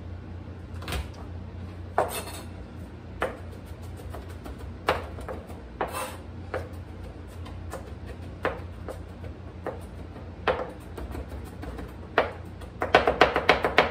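Chef's knife chopping fresh garlic on a plastic cutting board: scattered single knocks of the blade on the board about once a second, then near the end a fast run of rapid chopping strokes, several a second. A steady low hum runs underneath.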